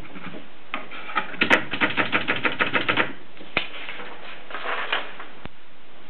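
Mercedes Prima typewriter being typed on: a fast run of key strikes lasting almost two seconds, about eight a second, then a few scattered single strikes.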